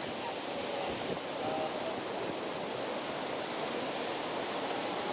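Steady outdoor ambient hiss, like wind or distant water, with faint snatches of distant voices now and then.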